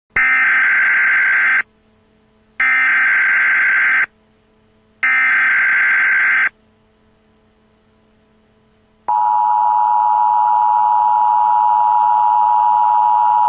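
Emergency Alert System tones: three bursts of SAME header data, each about a second and a half long and a second apart, then about nine seconds in the steady two-tone EAS attention signal starts and holds.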